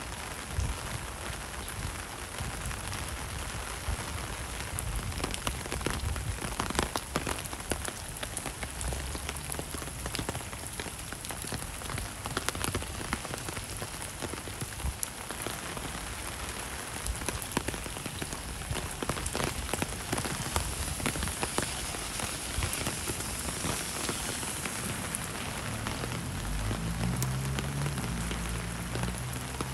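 Steady rain falling, an even hiss dotted with many separate close drop hits. A low rumble comes in near the end.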